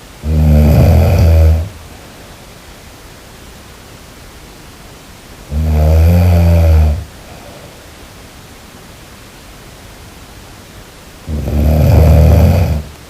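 A person snoring: three loud, low, rattling snores, each about a second and a half long, roughly every five and a half seconds, with a steady hiss between them.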